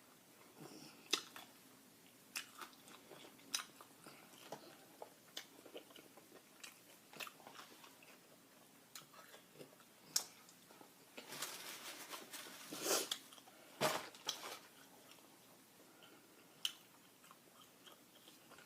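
Close-up mouth sounds of someone chewing and biting crunchy fried chicken: scattered wet clicks and crunches, with a louder, busier stretch of crunching about eleven to fourteen seconds in.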